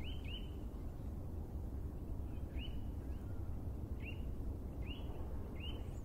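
Faint high chirps, each a short hooked note, coming every second or so, over a steady low rumble.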